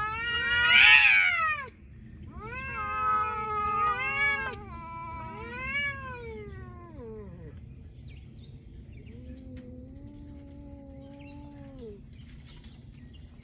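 Two domestic cats yowling at each other in an aggressive face-off. There are three long yowls that rise and fall in pitch, the first the loudest, then a lower, steadier drawn-out moan near the end: the warning cries of a standoff that looks set to turn ugly.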